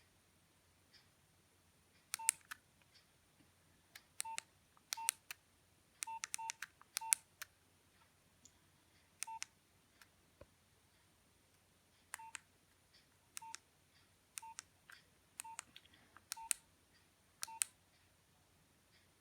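Keypad of a Nokia 2610 mobile phone being pressed about a dozen times at uneven intervals. Each press is a sharp button click with a short beep from the phone's key tone, sometimes in quick pairs, as when stepping through the menus.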